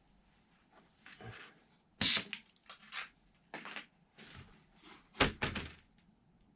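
A few short, scattered knocks and handling noises, the loudest about two seconds in and about five seconds in.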